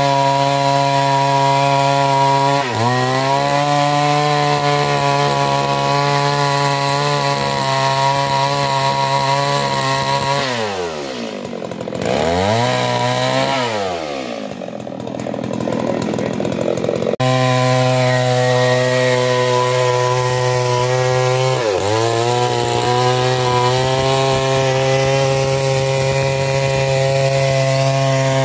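Stihl MS 382 two-stroke chainsaw cutting into logs at full revs, the engine pitch dipping briefly twice as the chain bites. In the middle the throttle is let off and blipped: the engine drops in pitch and rises again twice, then it returns to steady full-throttle cutting.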